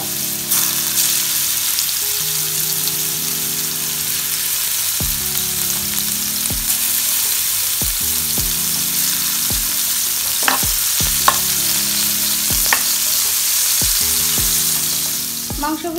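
Marinated chicken pieces sizzling as they fry in hot oil in a nonstick frying pan, a steady hiss with a few sharp clicks as more pieces go into the pan, and a spatula stirring them near the end.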